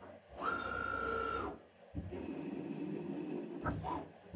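TRAK 1845RX CNC lathe threading a spinning part. A steady high whine of the machine moving runs for about a second near the start, then a steady rushing cutting noise follows, with short rising whines near the end.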